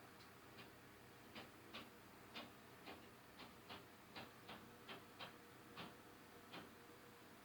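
Faint, sharp tapping from the unit upstairs: about fourteen quick taps at uneven spacing, roughly two a second.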